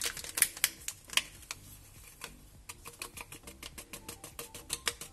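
Light clicks and taps of agar agar powder being tipped and tapped from its paper sachet into a small drinking glass of beer. In the second half a spoon clinks against the glass a few times a second, mixing the powder in.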